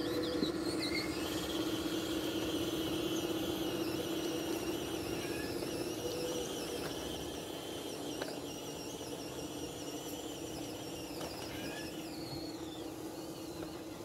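Electric drive motors and gearboxes of a battery-powered remote-control D11 bulldozer model, whining steadily as it tracks across loose dirt, growing gradually quieter as it drives away.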